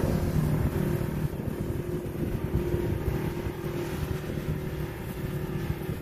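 Side-by-side UTV engine running steadily as the off-road vehicle drives away along a dirt trail, its sound slowly fading.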